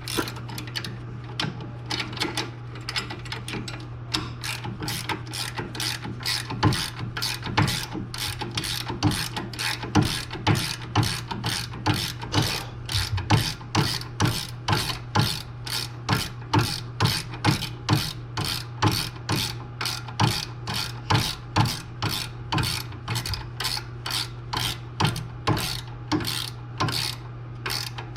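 Ratchet wrench clicking steadily, about two to three clicks a second, as it tightens the nut on a new sway bar link; a steady low hum runs underneath.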